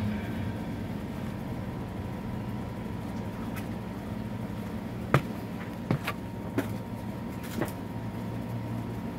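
Steady mechanical hum with a thin steady tone running under it, and five or so sharp clicks and knocks about five to eight seconds in, the loudest the first.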